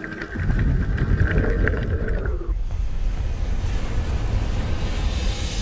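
Underwater rumble with scattered clicks and a thin steady tone. About two and a half seconds in, it cuts to a rushing whoosh that grows brighter toward the end: the whoosh of a logo-intro animation.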